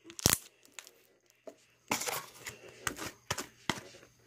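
Red slime being stretched and squished by hand: a sharp pop about a third of a second in, then a run of irregular clicks and crackles from about two seconds in.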